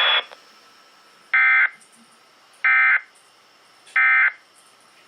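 Emergency Alert System end-of-message signal: three identical short bursts of screechy digital data tones, about 1.3 s apart, marking the end of the flash flood warning. A brief burst of hiss from the preceding broadcast cuts off just at the start.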